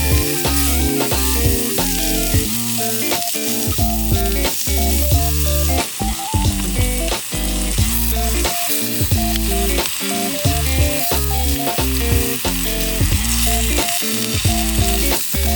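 Background music with a bass line and a steady beat, over a continuous high hiss.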